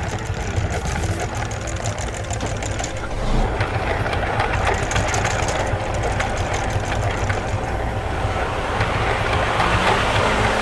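A heavy truck's diesel engine running steadily: a low rumble with a fast rattle.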